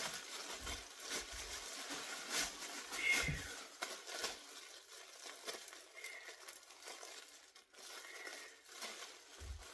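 Plastic trash bag rustling and crinkling as trash is put into it, with a few low thumps of handling.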